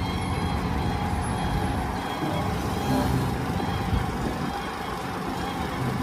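Diesel engine of a heavy tipper dump truck running steadily while its hydraulic hoist raises the dump body.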